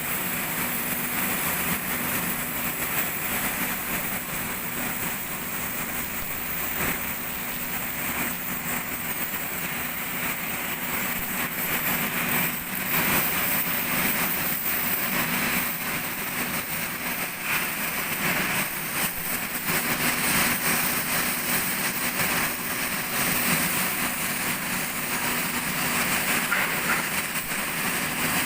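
Steady machinery noise of a working workshop, a constant low hum under a wide hiss, with no clear strokes or breaks.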